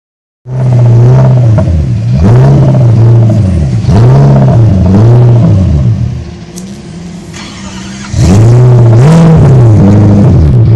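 Lexus V8 drift car engine revving hard, its pitch repeatedly dropping and climbing again about every second. It falls quieter for a couple of seconds past the middle, then comes back loud at high revs.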